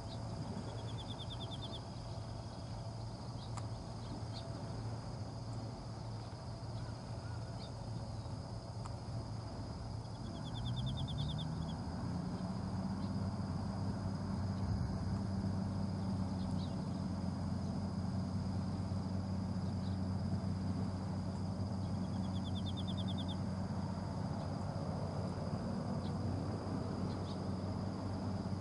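A fishing boat's engine running low and steady, then rising in pitch about ten seconds in and holding at a higher speed as the boat gets under way. Three short, rapid, high-pitched trills sound over it, near the start, around ten seconds in and a little past twenty seconds.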